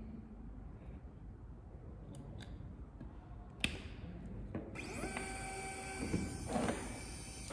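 A sharp click about three and a half seconds in, then about a second later a stepper-motor linear actuator starts running with a steady whine of several tones at once, rougher and louder near the end.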